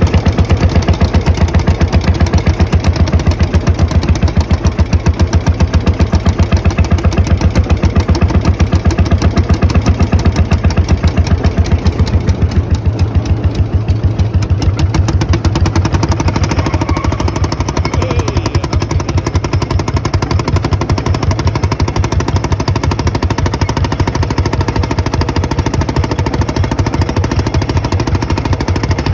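Field Marshall Series 3A tractor's single-cylinder two-stroke diesel engine running under load with a rapid, regular thumping exhaust beat as it drags a log across dirt.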